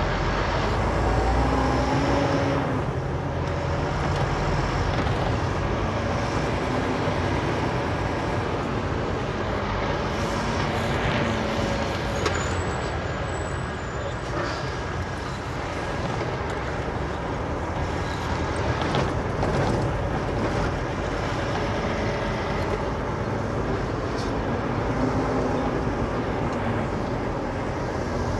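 Semi truck's diesel engine running steadily, heard from inside the cab while the truck drives.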